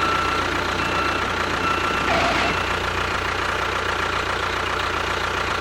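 An engine running steadily, an even mechanical drone with a faint constant high tone above it.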